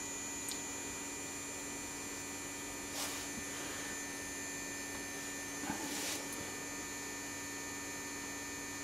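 Steady electrical mains hum with faint high-pitched whine tones from powered bench test equipment, with a couple of soft brief rustles about three and six seconds in.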